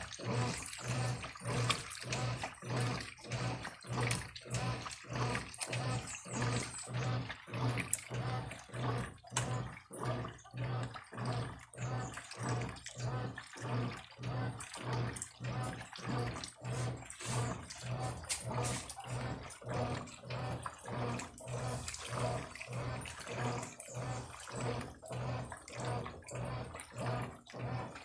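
Brastemp Eletrônica top-loading washing machine running with water in the tub: an even, rhythmic sloshing about two to three times a second over a steady low hum.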